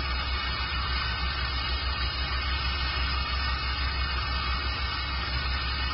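Fadal 4020 vertical machining center running, a steady mechanical whir over a strong low hum.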